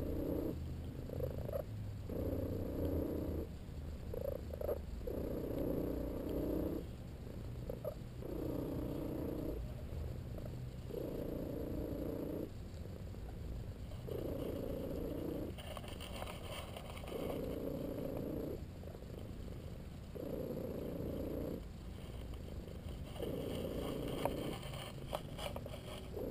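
Tabby cat purring in a steady breathing rhythm, a louder purr phase about every three seconds, with a faint high whistle-like squeak on many of the breaths.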